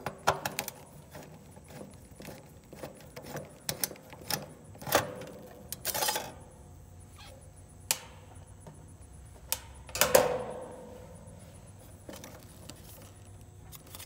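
Metal clinks and rattles from a nut driver and a sheet-metal capacitor bracket as an air-conditioner condenser's dual run capacitor is worked loose from its strap. The clicks come irregularly, with louder clanks about five and six seconds in and the loudest, ringing one about ten seconds in.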